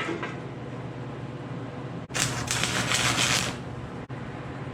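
Electric welding arc crackling in one burst of about a second and a half, starting about two seconds in, over a steady low hum.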